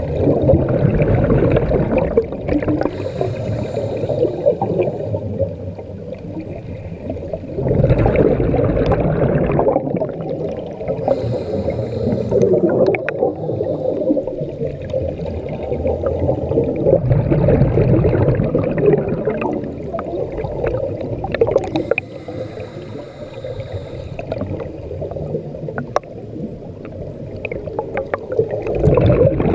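Scuba diver breathing through a regulator underwater: exhaled bubbles gurgle in surges several seconds apart, with hissing between them.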